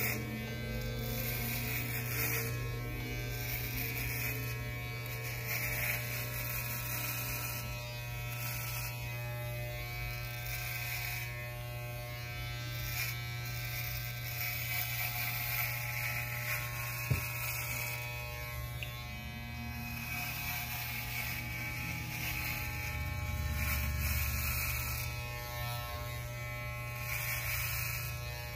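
Corded electric hair clippers running steadily, buzzing as they cut close-cropped hair on the scalp. A single sharp click about halfway through.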